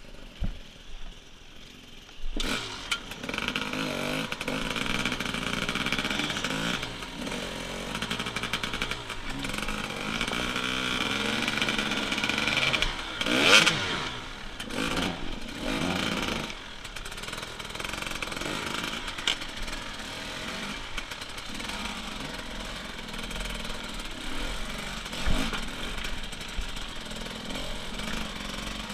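Enduro motorcycle engine revving up and down in short bursts as the bike works slowly over boulders in a riverbed. It runs quietly for the first couple of seconds, then picks up, and gives one sharp, loud rev about halfway through as the bike climbs a large rock.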